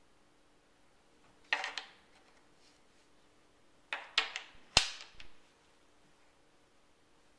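Puzzle pieces knocking and clacking as they are handled and set into place: a short cluster of sharp knocks about a second and a half in, then a quicker run of four or five knocks around four to five seconds in.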